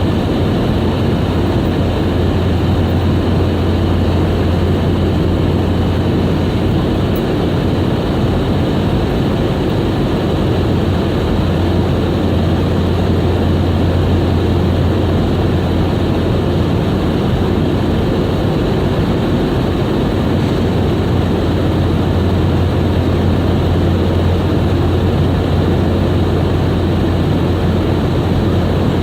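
Steady cabin noise inside a Boeing 717 airliner: the drone of its two rear-mounted Rolls-Royce BR715 turbofans, a constant low hum under a broad hiss, with no change in level.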